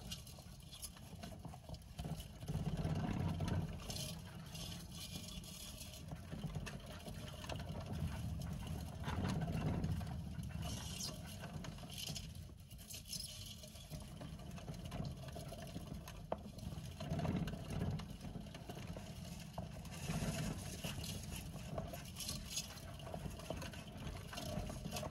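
Plastic saucer-type hamster wheel spinning with a low rumble that swells and eases as several Djungarian hamsters run on it, with intermittent scratchy rustling.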